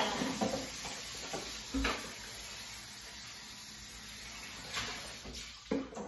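Kitchen faucet running steadily as dishes are rinsed under it, with a couple of dish knocks, about two seconds apart; the water shuts off near the end.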